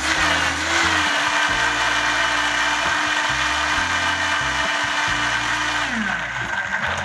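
Countertop blender motor running at full speed, puréeing vegetables into a smooth sauce. Its pitch wavers at first as it works through the chunks, then holds steady, and about six seconds in it winds down as it is switched off.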